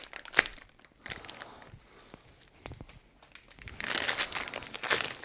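Thin plastic packaging bag crinkling and rustling as a bagged cable is handled and unwrapped, with a sharp click about half a second in and a louder stretch of rustling near the end.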